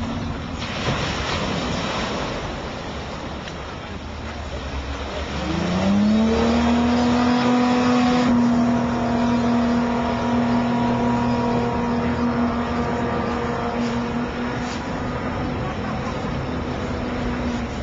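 Gibbs Aquada amphibious car's V6 engine driving its water jet as the car runs on the water. A broad rush of noise for the first several seconds, then the engine revs up about five seconds in and holds a steady high note while the car planes.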